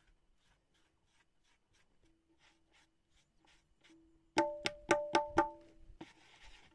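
A damp cloth rubs the head of a tabla's dayan in quick, soft strokes, and the drum gives a faint ring. About four seconds in, five quick strokes are played on the dayan, each a clear ringing note.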